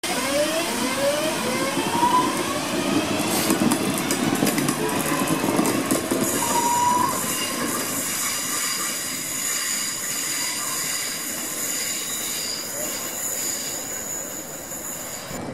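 London Midland Class 323 electric multiple unit pulling out of the station: its traction motors whine, climbing in pitch several times as it gathers speed, over the rumble of wheels on the rails. The sound slowly fades as the train draws away.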